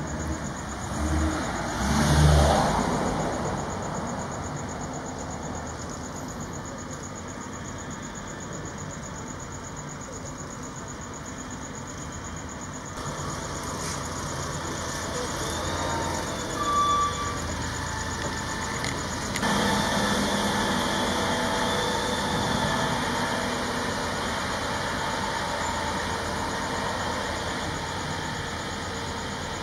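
Diesel engine of a Volvo FL road-rail truck running as it moves slowly along light-rail tracks. There is a loud swell about two seconds in and a short high tone near the middle, and the engine grows louder from about two-thirds of the way through.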